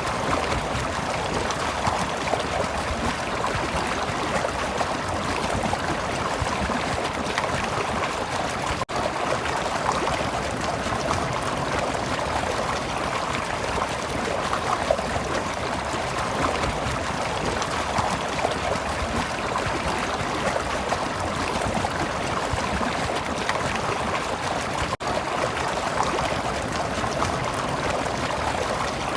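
Stream water flowing and trickling steadily, with two momentary dropouts.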